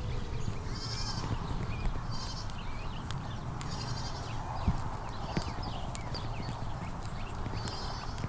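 Goats bleating in the pens, with short high chirping calls recurring every second or two and a low rumble of wind on the microphone.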